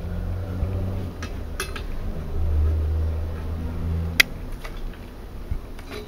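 Soaked willow rods clicking and rubbing as they are bent over and woven through a drilled wooden block jig, with a sharp click about four seconds in. A low rumble runs underneath and stops about four seconds in.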